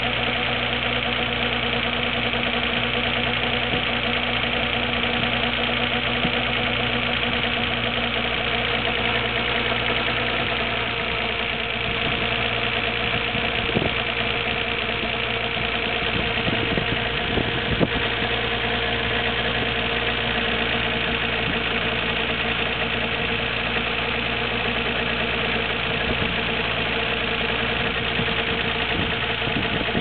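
Nissan Skyline GT-R R33's RB26DETT twin-turbo straight-six idling during cold warm-up, with a churning 'gurun-gurun' abnormal noise from the engine. The owner hears this noise only from about a minute after the day's first start until the engine is warm, and does not know its cause; the water pump and timing belt have recently been replaced.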